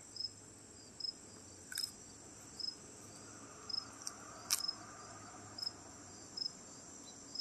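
Crickets chirping in a steady rhythm, about one chirp a second, over a continuous high insect trill. Two short crisp snaps cut through, about two seconds in and a louder one about four and a half seconds in, as a raw okra pod is bitten into.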